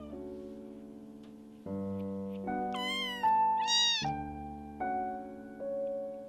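A very young Bengal kitten mewing twice in quick succession about halfway through, two short high-pitched cries that bend in pitch, over soft solo piano music.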